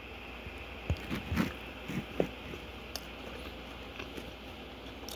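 A person chewing fried chicken, with a few short crunches and mouth clicks in the first three seconds.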